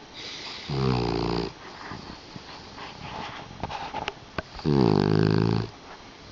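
A puggle (pug–beagle cross) snoring: two loud pitched snores about four seconds apart, with a few small clicks between them.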